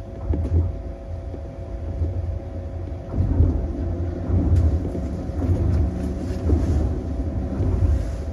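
Tokyo Monorail train heard from its front cab while running along the concrete guideway: a steady low rumble with irregular heavier bumps.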